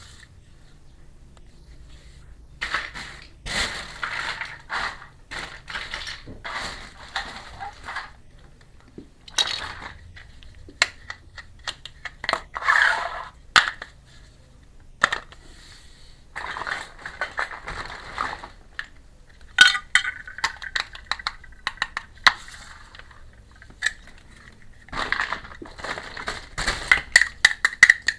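Miniature toy kitchen pieces being handled: sharp clicks and taps as small pieces are set down or knocked together, with bursts of rattling and scraping every few seconds.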